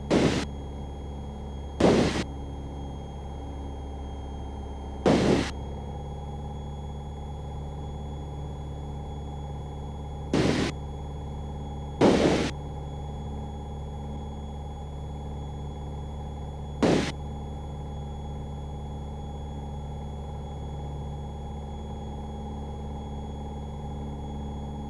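Piper PA-28 Cherokee's piston engine droning steadily in the cockpit, with a thin steady high whine. Six short loud bursts of noise break in: two close together at the start, then one each about five, ten, twelve and seventeen seconds in.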